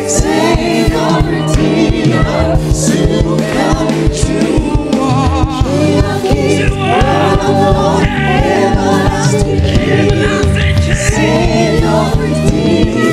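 Live gospel worship song: women's voices singing into microphones over a band with a steady bass line and recurring cymbal splashes.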